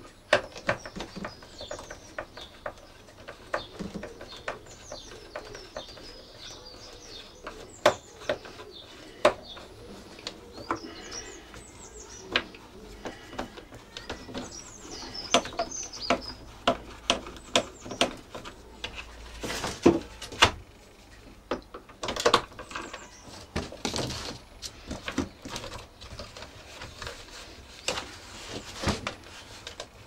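Irregular plastic clicks and knocks from handling and unscrewing an upright vacuum cleaner's brush-roll housing, the loudest about 8, 20 and 22 seconds in. Birds chirp in the background through the first half.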